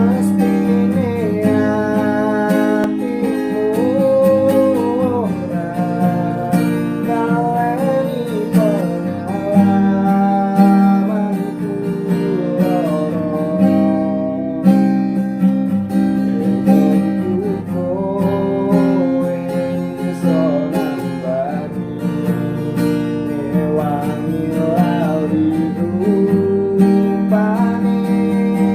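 Background music: strummed acoustic guitar with a gliding melody line over it.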